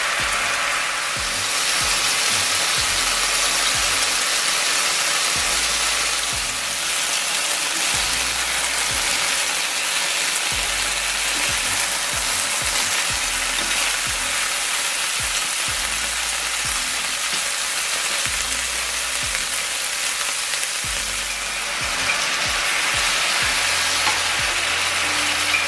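Stuffed chicken breasts frying in hot oil in a frying pan: a steady, dense sizzle.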